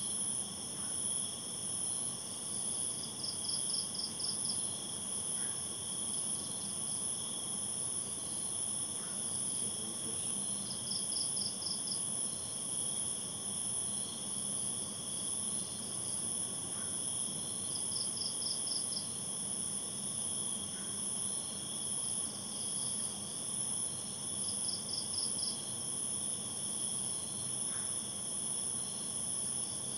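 Night insect chorus: a steady, high-pitched shrilling of crickets, with a short pulsed chirp trill that comes back about every seven seconds.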